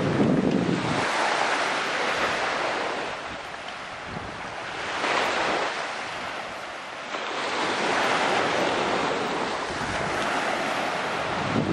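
Sea waves washing ashore, rising and falling in slow surges a few seconds apart, with wind buffeting the microphone.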